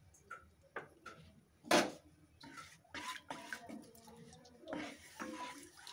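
Wooden spatula stirring melted ghee in a non-stick kadai: scattered light clicks and knocks, the sharpest about two seconds in, then soft scraping and stirring sounds in the second half.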